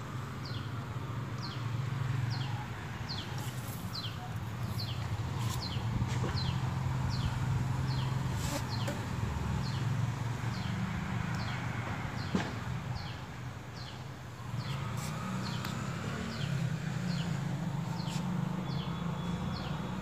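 A bird repeating a short, falling chirp about twice a second, over a steady low hum.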